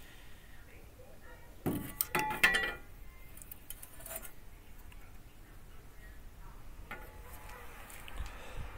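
A short cluster of metallic clinks with a brief ringing, about two seconds in; after it only faint handling noise and a couple of light taps near the end.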